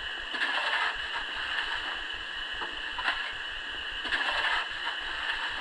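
Steam locomotive standing before departure, hissing steam steadily, with louder gusts about half a second in, near three seconds and around four seconds in.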